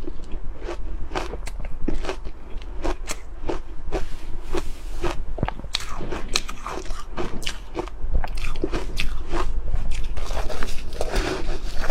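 Ice being bitten and crunched between the teeth: a quick, irregular run of sharp cracks and crunches.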